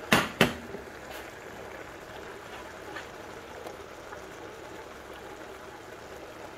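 Two sharp knocks near the start, then a steady low sizzle and bubbling of a thick tomato-and-meat sauce cooking in a pot under a heap of diced eggplant, its water cooked off so that only the paste is left.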